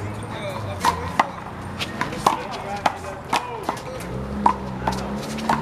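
One-wall handball rally: a rubber handball being slapped by hands and rebounding off the wall and the ground, about ten sharp smacks roughly half a second apart. A low steady drone comes in about four seconds in.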